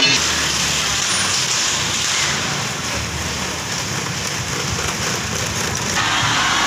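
Steady street noise with motor scooters riding close by: an even, hiss-like rush over a low engine rumble, growing a little brighter near the end.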